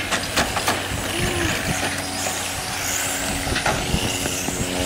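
Electric 1/10-scale on-road RC touring cars racing: a high-pitched electric motor whine that glides up and down with throttle, over a steady hiss of tyres on asphalt, with scattered sharp clicks.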